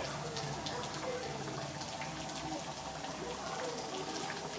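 Pan of fish curry simmering on a gas stove: a steady hiss with small bubbling pops scattered through it.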